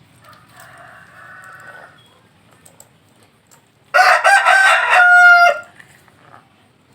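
Rooster crowing once, loud, starting about four seconds in and ending on a long held note. A fainter drawn-out call comes in the first two seconds.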